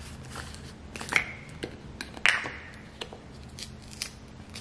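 Sharp plastic clicks and snaps of a small spice bottle's cap being worked open by hand, about half a dozen, the loudest a little past two seconds in.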